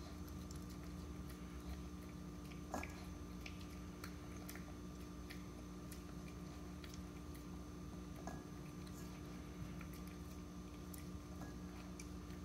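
Morkie puppy eating boiled egg from a ceramic bowl: faint chewing, with scattered small clicks of mouth against the bowl and one louder click about three seconds in. A steady low hum runs underneath.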